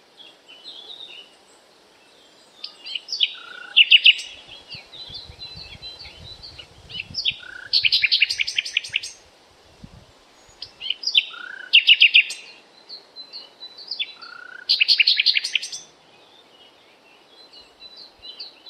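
Songbirds chirping, with one bird repeating a rapid trilled song about every four seconds over softer scattered chirps.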